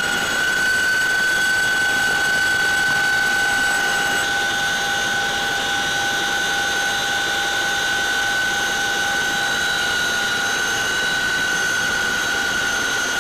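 Cabin noise of a CH-47 Chinook helicopter in flight: a steady loud rush with a high-pitched whine held on one pitch.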